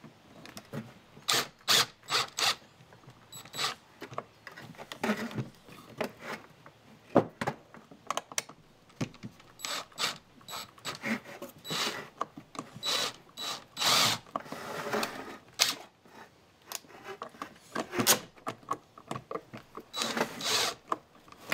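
Cordless impact driver running in short, stop-start bursts with a ratcheting, rapid clicking as it drives 1-inch pocket-hole screws into OSB, with handling clicks between the bursts.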